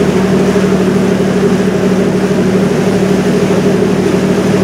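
River cruise boat's engine running steadily, heard on board: a loud, even drone with a steady low hum and a second tone above it.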